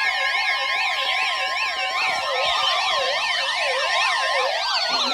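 Electronic emergency alert tones: several warbling, siren-like tones rising and falling quickly over steady tones, with a tone gliding downward from about two seconds in and another near the end.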